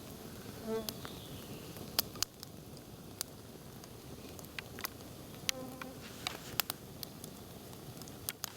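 Campfire crackling, with sharp irregular pops. A flying insect buzzes past briefly twice, about a second in and again past the middle.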